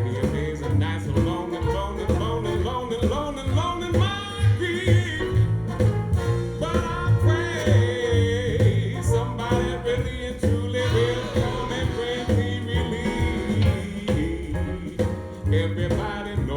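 Blues recording played back through Wilson Audio loudspeakers: a steady bass beat under a bending, sliding lead line, with no sung words.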